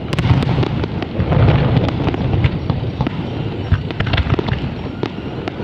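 Aerial fireworks display: many shell bursts going off in quick succession, their bangs overlapping over a constant low rumble.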